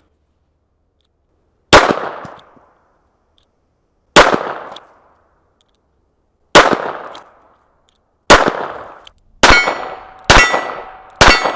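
Seven shots from a Smith & Wesson Model 43C .22 LR revolver: four spaced about two and a half seconds apart, then three quicker ones about a second apart. Each of the last three is followed by the ringing of a struck steel target.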